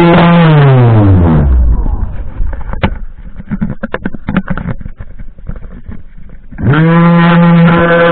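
Worx electric string trimmer's motor running with a steady whine, then spinning down with a falling pitch over the first second and a half. A few seconds of light clicks and knocks follow, then the motor spins quickly back up to full speed about two-thirds of the way through.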